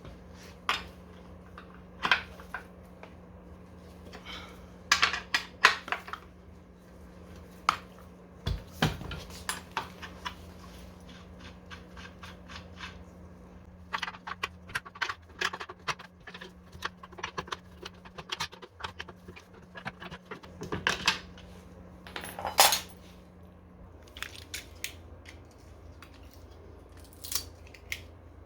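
Scattered metallic clicks and clanks of hand tools and small parts being handled during work on an electric scooter's rear wheel, with a steady low hum underneath that stops near the end.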